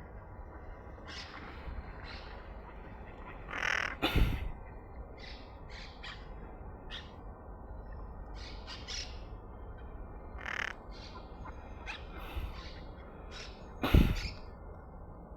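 Parrots squawking: many short, harsh calls one after another, with two much louder bursts about four seconds in and near the end, over a steady low rumble.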